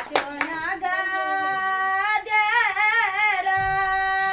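A female voice singing a slow Kumaoni Holi folk melody unaccompanied, holding long notes with a wavering, ornamented pitch. Two sharp knocks come just at the start.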